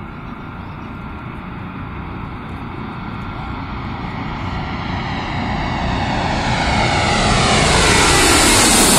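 Airbus A320 jet on landing approach, the noise of its twin turbofan engines growing steadily louder as it comes in low and reaches overhead near the end. Sweeping tones slide down in pitch as it closes in.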